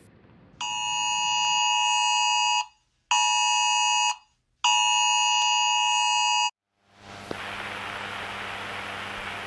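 Electronic emergency-alert tone of a simulated EAS broadcast, sounding three times: long, short, long. It is followed about seven seconds in by a steady hiss with a low hum.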